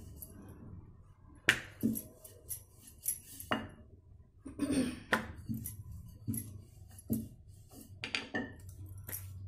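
Wooden rolling pin rolling out a thin sheet of dough on a round rolling board, with a dozen or so irregular short knocks and clicks as the pin and board shift and the dough is lifted and turned.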